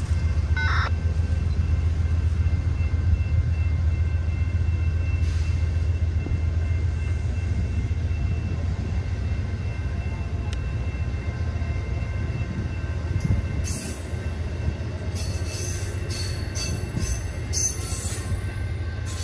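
An Amtrak passenger train's stainless-steel Amfleet coaches rolling past: a steady low rumble of wheels on the rails, with bursts of sharper, higher clatter in the last several seconds.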